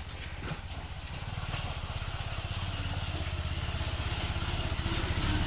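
A vehicle engine running with a fast, even beat, growing steadily louder.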